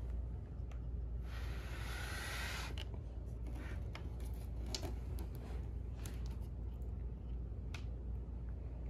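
A steady low hum, with a short rustle about a second in and a few faint clicks scattered through it.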